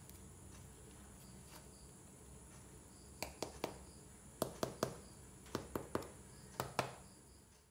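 Sharp taps in four quick runs of two or three, starting about three seconds in, as a hand pats on the baked pizza crust. Faint cricket chirping in the background.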